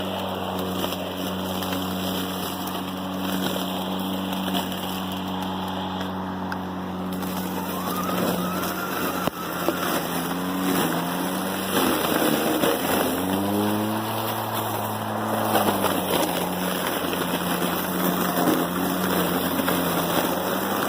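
Ego 56-volt cordless self-propelled lawn mower running while it cuts through tall, thick weeds: a steady electric motor and blade whir over the rustle of cut vegetation. The pitch sags twice, about halfway through, as the blade loads up in the dense growth, and then it comes back up to speed.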